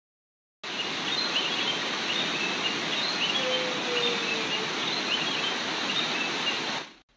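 Steady rush of a rocky forest stream, with birds chirping over it and one falling whistle about halfway through. It starts suddenly just after the beginning and cuts off abruptly near the end.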